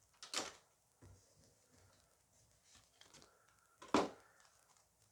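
Faint handling of a foil booster pack and its cards: a short rustle near the start, then a single sharp click about four seconds in.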